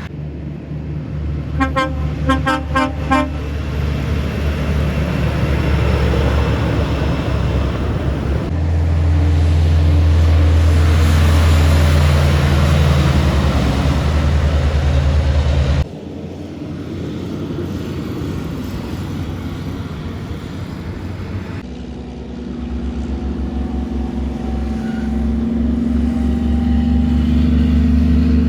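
A truck horn gives a rapid series of short toots about two seconds in, followed by heavy truck engines running loud as trucks pass. The sound drops off sharply about halfway through, and then another truck's engine builds toward the end.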